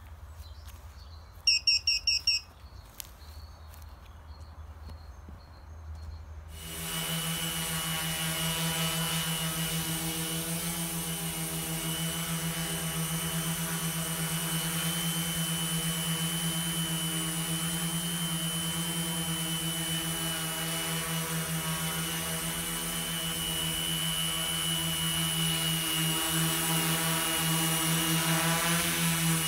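A short run of high electronic beeps about two seconds in. Then, about six and a half seconds in, the Titus 600 tricopter's three 800 kV brushless motors with 12×3.8 props start up into a steady multi-tone drone with a high whine as the tricopter hovers.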